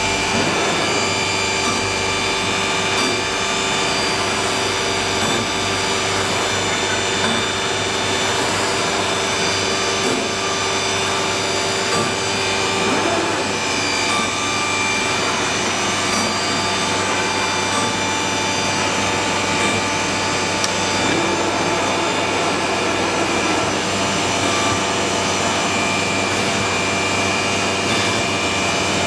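Woodworking CNC router machining panels: a steady spindle whine with several held tones over continuous cutting noise.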